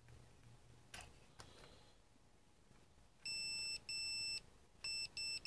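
Fluke multimeter's continuity beeper sounding as its test probes touch pins on a circuit board. It gives a steady high beep that switches on and off: two half-second beeps from about three seconds in, then two quick ones and a longer one starting near the end. Each beep marks a connection between the two probed points. There is a faint click about a second in.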